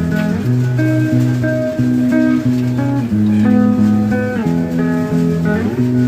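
Background music: a guitar-led tune with a bass line.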